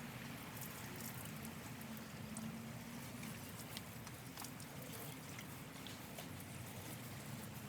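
Faint trickle and patter of water poured from a watering can onto plants, with scattered small drips over a low steady hum.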